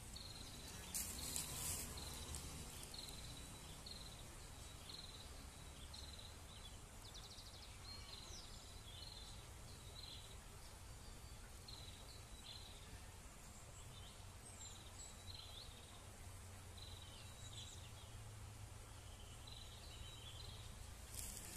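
Quiet outdoor ambience: a short high chirp repeating about once or twice a second over a low steady rumble, with a brief rustle about a second in.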